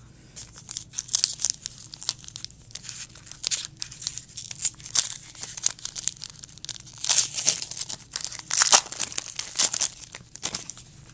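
A trading card pack's wrapper being torn open and crinkled by hand, in irregular crackling rustles.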